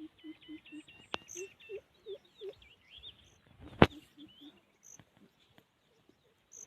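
Birds chirping and trilling over a run of short, low animal calls repeated a few times a second. A single sharp click a little past the middle is the loudest sound.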